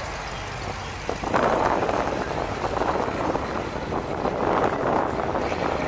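Engines of classic cars and trucks running as they drive slowly past in a line. About a second in, a louder, uneven rushing noise comes in over the engine rumble.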